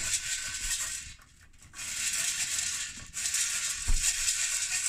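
Maize kernels rattling inside a metal pot shaken over a wood fire as they roast for popcorn, a dense, continuous rattle. It stops briefly about a second in and again just after three seconds.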